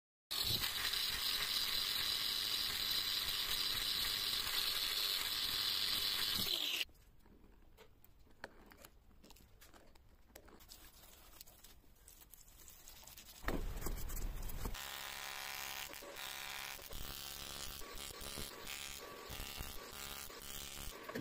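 A loud, steady rushing noise for the first six or so seconds stops abruptly, followed by quiet light clicks. About halfway through, an AC TIG welding arc strikes on an aluminium casting with a sudden low thump, then buzzes steadily to the end.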